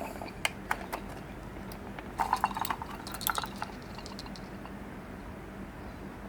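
Light clicks and small rattles as a case of mini screwdrivers is handled: a few single taps in the first second, then two quick flurries of clicks about two and three seconds in. After that only a faint steady hum.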